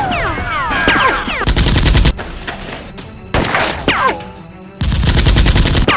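Two bursts of rapid automatic gunfire sound effect, the first about half a second long, the second about a second long near the end, with sliding whistle-like tones in between.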